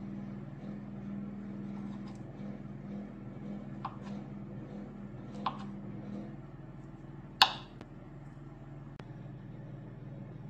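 Chef's knife cutting soft Gorgonzola cheese on a bamboo cutting board: light taps of the blade on the board about four and five and a half seconds in, then one sharp, loud knock of knife on wood about seven and a half seconds in, over a steady low hum.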